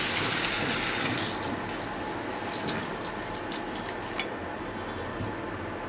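Water poured in a stream into a hot frying pan, splashing and hissing as it hits. It is loudest for about the first second, then thinner with a scatter of crackles until about four seconds in.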